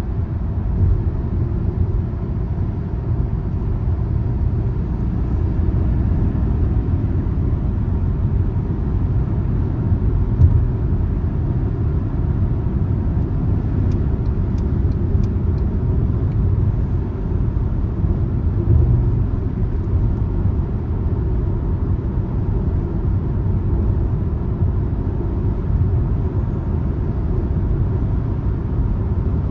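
A car driving on the road: a steady low rumble of engine and tyre noise, with one brief louder bump about a third of the way in.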